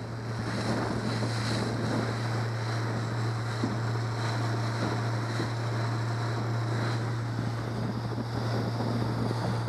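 Yamaha 70 hp four-stroke outboard running steadily at speed, a constant low hum under the rush of wind and water spray past the boat. The sound swells up right at the start, then holds level.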